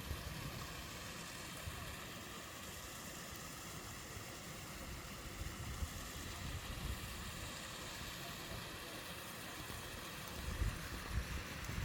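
Steady rush of a mountain stream and waterfall, with low gusts of wind buffeting the microphone growing near the end.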